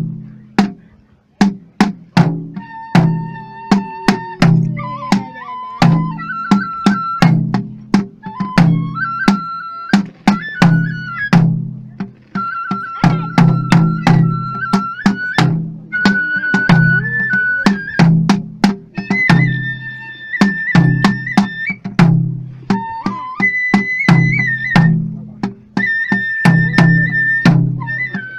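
Live traditional Japanese ritual festival music: a barrel drum struck in quick, frequent strokes under a high flute playing long held notes that step upward in pitch.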